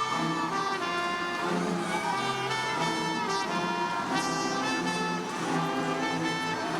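Band music led by brass instruments, playing sustained chords and a melody.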